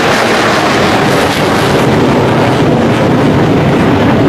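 Military fighter jets flying low overhead: a loud, steady jet-engine rush with no break or change in level.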